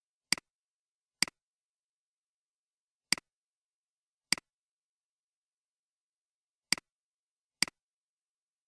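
Computer mouse button clicking, six sharp clicks in three loose pairs with silence between.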